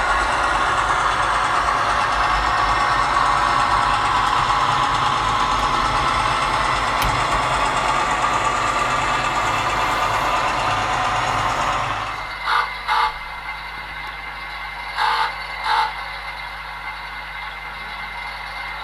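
Model-railway sound: a diesel locomotive's sound-decoder engine running together with the rattle and clatter of wagon wheels on model track as a train of tank wagons passes. It falls away sharply about twelve seconds in. Over a quieter steady hum, two pairs of short pitched toots follow a couple of seconds apart.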